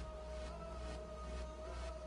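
Background music with a beat, a long held note and steady bass.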